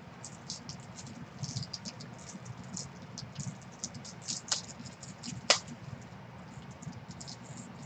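Scattered light clicks and taps in an irregular run, with one sharper click about five and a half seconds in, over a faint low hum.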